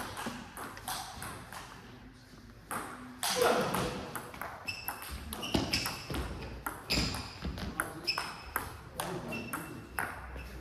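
Table tennis rally: the ball clicking sharply off the table and the rubber-faced bats in quick alternation, a hit or bounce about every half second. Fainter clicks before the rally starts about three seconds in.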